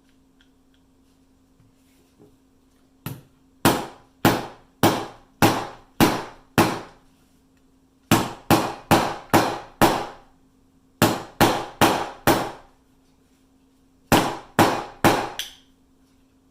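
Small hammer tapping on metal, driving a pin into a Glock pistol frame: about two dozen sharp, ringing taps in four runs, the second run faster than the first.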